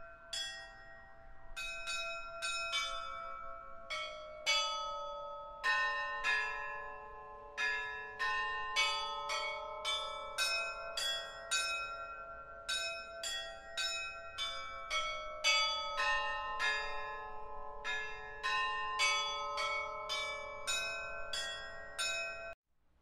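Church bells ringing a quick, uneven peal of many struck notes at different pitches, each note ringing on under the next. The peal cuts off suddenly near the end.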